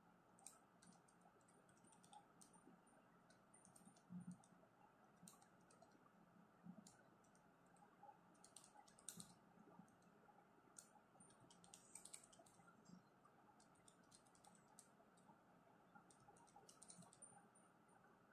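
Faint, irregular clicks of calculator keys being pressed as a long calculation is keyed in.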